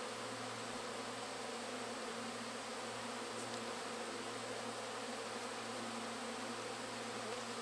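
Thousands of honeybees buzzing in flight close around the hive's honey supers: a steady, unbroken drone.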